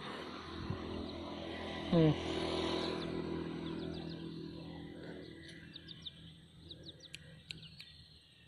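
Young kampung chicken chick peeping, faint short high chirps coming several a second in the second half. Before that there is a rustling noise, and about two seconds in a single short low vocal sound that falls in pitch and is the loudest thing heard.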